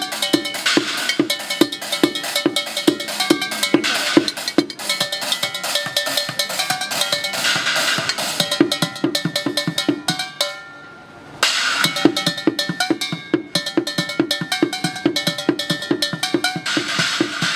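Fast, steady industrial-techno beat drummed with sticks on a kit of recycled objects: metal pots and pans and trays ringing over a regular deep thud from buckets and small drums. About ten and a half seconds in the beat drops out for roughly a second, then comes back in abruptly.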